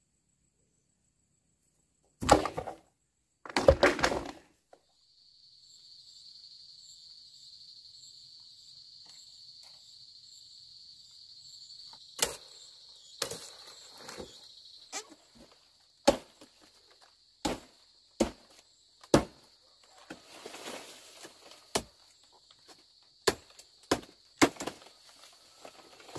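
A machete chopping through fan palm frond stalks, sharp single chops about once a second with leaves rustling, over a steady high insect buzz. Earlier, two loud crashes.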